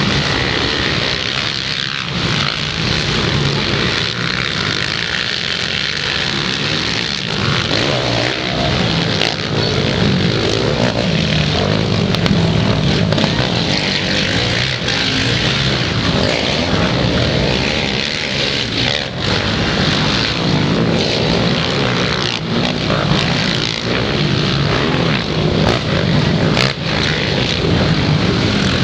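Racing ATV (quad) engines running hard on a dirt motocross track, a continuous buzz from several machines that swells and changes pitch as riders work the throttle.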